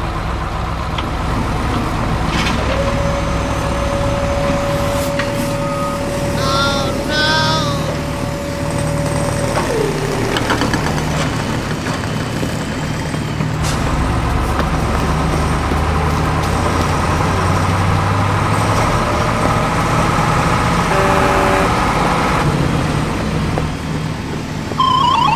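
Heavy truck engine running steadily. A long held tone sounds from about three to ten seconds in and drops away in a falling glide, and a few short high chirps come around six to seven seconds in.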